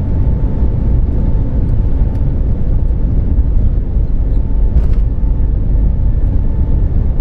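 Airbus A320 engines at takeoff power, heard inside the passenger cabin: a loud, steady, deep rumble with a thin steady whine above it.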